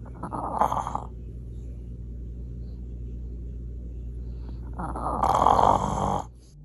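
French bulldog snoring in its sleep: two loud snores, a short one near the start and a longer one about four seconds later, with a low steady rumble between them.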